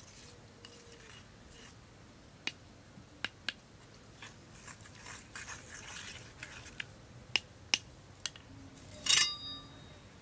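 Wooden spoon scraping peanut butter into a stone mortar, with several sharp clicks of wood against stone. Near the end comes one louder knock that rings briefly.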